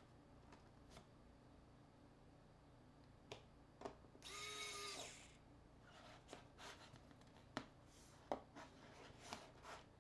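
Electric precision screwdriver whirring once for about a second while driving a small screw into a smartphone, among light clicks and taps of the tool and small parts.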